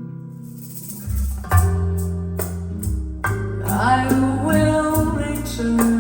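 Recorded jazz playing through Snell Type A/III vintage loudspeakers in a room: an instrumental passage with deep bass notes and plucked guitar. The notes come in about a second in, and a gliding, bending melody line joins about halfway through.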